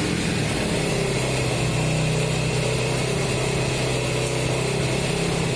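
Yamaha Enticer's 125 cc single-cylinder four-stroke engine idling steadily on a swapped-in Honda CG125 carburetor while the carburetor is being adjusted.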